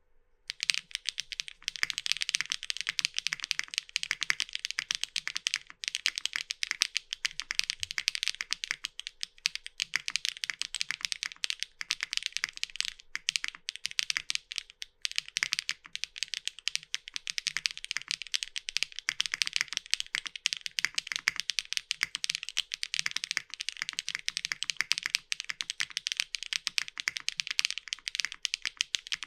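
Steady fast typing on a mechanical keyboard with lubed HMX Aster linear switches mounted on a polypropylene (PP) plate in a Tess65 case. The keystrokes are a dense run of clacky clicks that starts about half a second in, with a couple of brief pauses.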